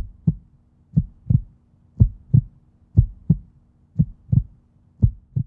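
Heartbeat sound effect: six double low thumps, lub-dub, one pair each second at a slow, even pace, over a faint low hum.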